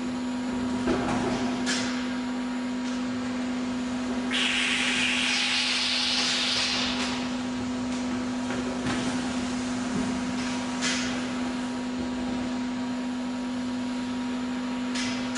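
Codi-Pack CODI-6004 oil filling machine running while filling plastic jugs with oil: a steady hum, a few sharp clicks, and a loud hiss lasting about three seconds from roughly four seconds in.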